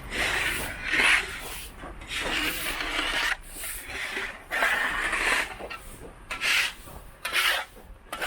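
Footsteps crunching in deep, fresh snow, one gritty crunch roughly every second at a walking pace.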